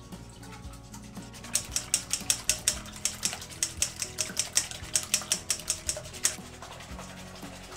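Egg and soy milk being beaten in a stainless steel bowl: the utensil clicks rapidly against the metal, about five strokes a second, starting about a second and a half in and stopping about six seconds in. Background music plays throughout.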